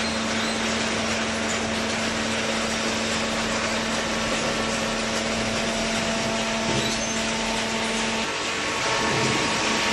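Hydraulic cardboard baler running: a steady motor-and-pump hum over constant mechanical noise. The hum drops out briefly about eight seconds in.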